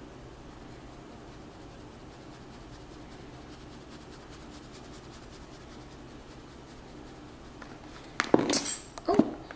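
Low steady room hum, then about eight seconds in a quick cluster of sharp clinks and knocks as seasoning containers are handled in the kitchen.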